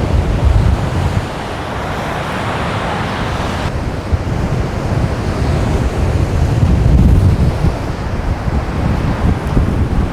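Strong wind buffeting the microphone over rough surf breaking, a steady rushing hiss with gusty low rumbles; the louder surf hiss drops off suddenly a little under four seconds in.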